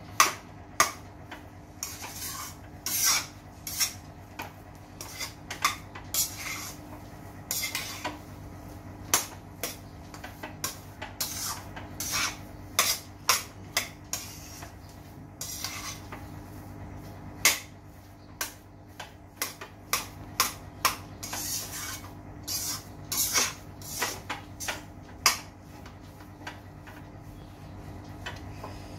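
Spatula scraping and clanking against a stainless steel kadai as thick, cooked upma is stirred and broken up, in irregular strokes, over a steady low hum.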